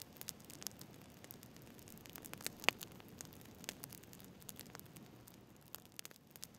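Campfire of burning twigs crackling quietly: irregular small pops and snaps, with one sharper pop nearly three seconds in, over a low steady rush of flame.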